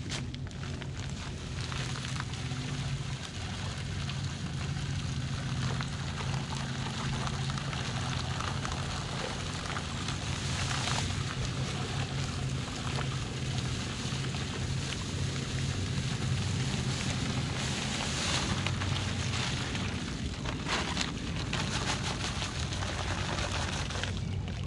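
Dry concrete mix pouring from a paper bag into a water-filled plastic pipe form around a piling, a steady rushing hiss that swells about 11 and 18 seconds in. A steady low hum runs underneath.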